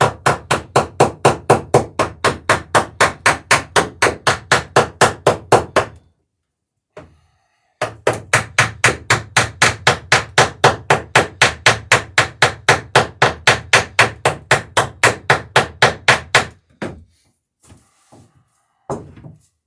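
Rapid, evenly paced hammer blows at about five a second, peening rivets in the planking strakes of a wooden dory. There are two long runs: the first lasts about six seconds, and the second, about nine seconds long, follows a short pause. A few separate knocks come near the end.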